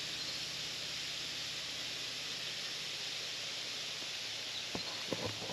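A steady high hissing buzz of unknown origin, which the hiker wonders might be flies or a disturbed wasp nest. A few soft knocks near the end.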